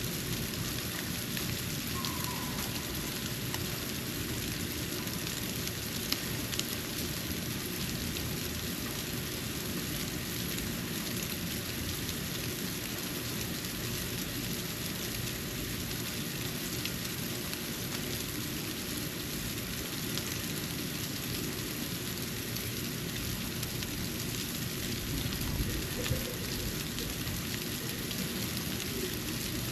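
Steady hiss and patter of snow falling onto a porch, much like light rain, with a few faint ticks about six seconds in and again near the end.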